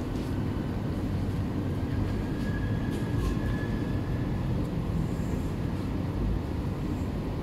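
Steady low rumble of distant traffic, with a faint high whine for about two seconds in the middle.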